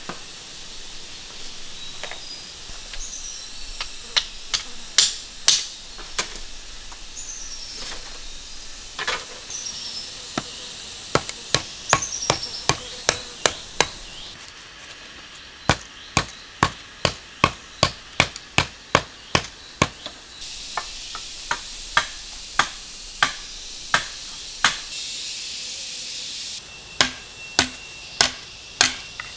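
Machete blade chopping and splitting bamboo: a series of sharp, hollow knocks, running at about two strokes a second for stretches.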